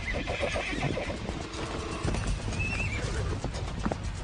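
Wild horses squealing in a fight, with hooves thudding and scuffling as mares try to stop a stallion from attacking a foal. One squeal comes right at the start and a shorter, higher one about two and a half seconds in.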